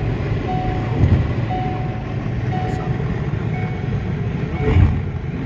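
Steady road and engine rumble inside a moving car's cabin, with a short electronic beep repeating about once a second and two brief thumps, about a second in and near the end.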